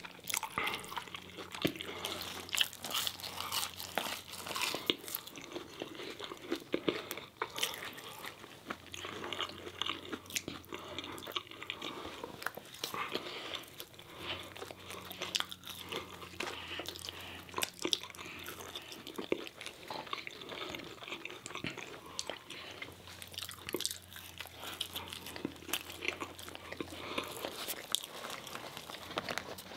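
Two people biting and chewing McDonald's food (crispy chicken nuggets, fries and McChicken sandwiches), with crisp crunches and many sharp mouth clicks throughout.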